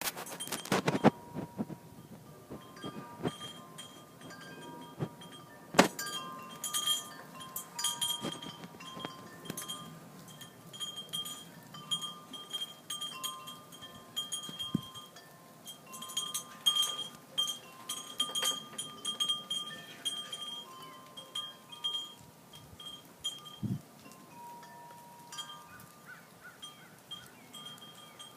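Chimes ringing irregularly at a few fixed pitches, struck again and again, with scattered sharp taps and clicks.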